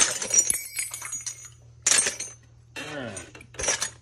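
Brass chandelier parts (cups, dishes and sleeves) clinking and clattering against each other as they are handled and dropped into a plastic bin. The metal rings brightly in several sharp bursts: one at the start, one about two seconds in, and one near the end.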